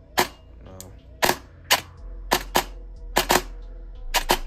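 Airsoft AEG with a Version 2 gearbox firing short shots while its Double Eagle MOSFET is being programmed: about nine sharp clacks of the gearbox cycling, irregularly spaced, with several coming in quick pairs in the second half.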